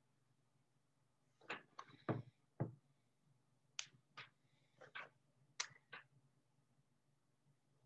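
Quiet room with a faint steady low hum, broken by about ten short, irregular clicks and light knocks in the middle few seconds.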